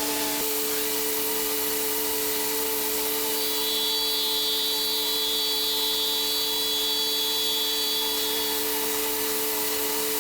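DMG five-axis CNC milling machine's spindle running at steady speed while cutting, a steady whine over a hiss of cutting and coolant. A higher-pitched tone joins about three seconds in and fades out about three seconds before the end.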